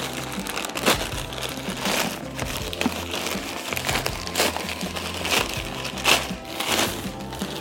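Plastic courier bag crinkling and crackling as it is handled and opened, with sharp crackles about once a second, over soft background music.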